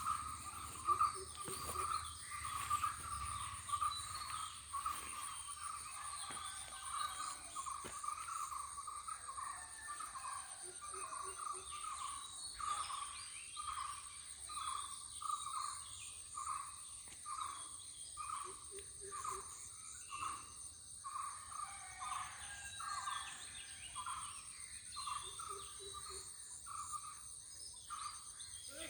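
Outdoor nature ambience: a steady high-pitched insect drone with a pulsing chorus of animal calls repeating about once or twice a second, and a short low call a few times.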